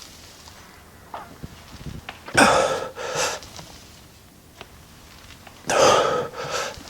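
A man breathing hard: two loud breaths about three seconds apart, each followed by a shorter breath, with a few faint knocks before the first.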